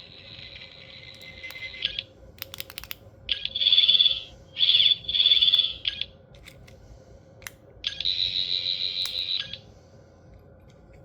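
Toy replica of the Tenth Doctor's (David Tennant's) sonic screwdriver playing its electronic sound effects through its small speaker: a run of high-pitched warbling buzzes, each a second or two long, with sharp button clicks between them. The last buzz, near the end, pulses.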